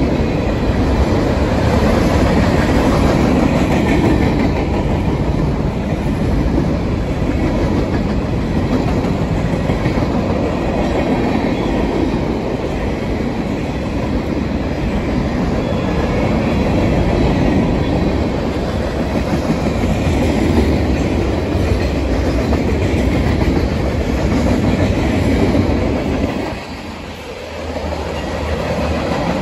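Freight train cars rolling past close by: the steady noise of steel wheels running on the rails. The sound drops briefly for about a second and a half near the end, then comes back.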